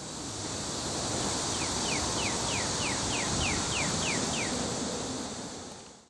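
Steady outdoor rush of wind and distant traffic. Through the middle a bird gives a quick run of about ten short descending notes, about three a second.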